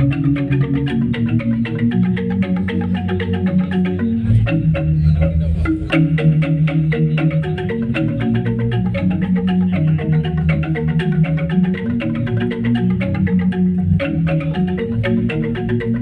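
Balinese gamelan ensemble playing a tabuh: bronze metallophones struck in fast interlocking patterns over sustained low notes, with a deep gong-like swell about four seconds in and again near the end.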